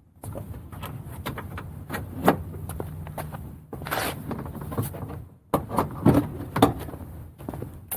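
Quick-release pins clicking out and a plastic rear bumper cover knocking and rattling as it is pulled off the car: a run of sharp clicks and thumps, the loudest about two seconds in and several more past the middle.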